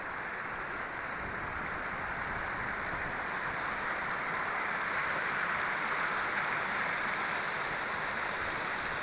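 Water rushing steadily down a hill burn's waterfall, spread over a wide stretch of rock, growing a little louder partway through.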